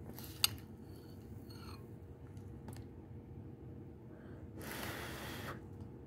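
One breath blown out over a forkful of hot cake to cool it, lasting about a second, a little past the middle. A sharp click comes near the start, over a steady low hum.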